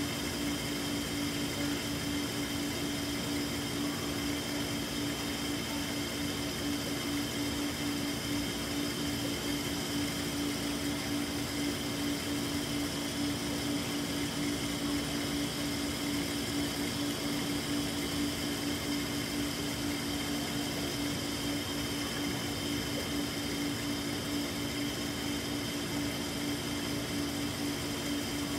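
Aquarium tanks in a pet store heard up close: the steady hum of the tanks' pumps and filters, with one strong low tone over an even hiss.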